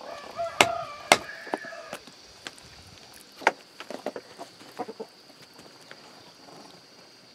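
Knife chopping animal meat and bone on a wooden chopping block: two loud chops in the first second and a half, another about three and a half seconds in, then a run of lighter knocks. A chicken clucks during the first two seconds.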